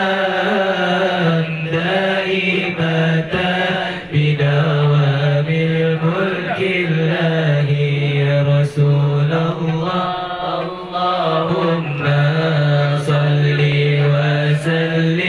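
Voices chanting an Arabic salawat, a blessing on the Prophet Muhammad, in a slow, drawn-out melody, with a steady low held note beneath the melodic line.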